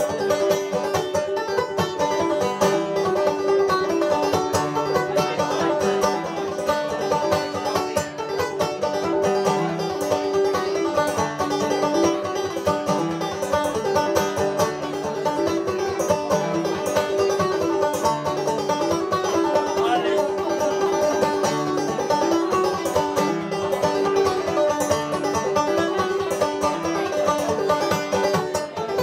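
Solo banjo played clawhammer style, a lively Scottish tune with quick, continuous picked notes and a driving rhythm.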